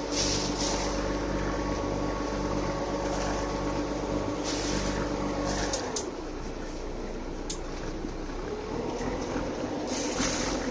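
Boat engine running steadily; about six seconds in it throttles back and its pitch drops, then the pitch slowly rises again a couple of seconds later.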